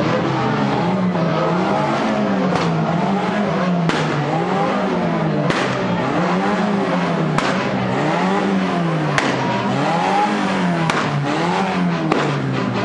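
Street carnival parade noise: a pitched sound that keeps rising and falling in a repeating cycle, with a sharp crack about every one and a half to two seconds.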